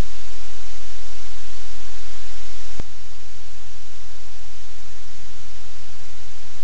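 Loud, steady hiss of static from a live webcam's audio feed, with a low electrical hum underneath. About three seconds in, a sharp click as the feed switches cameras, after which the hiss is slightly quieter and the hum changes.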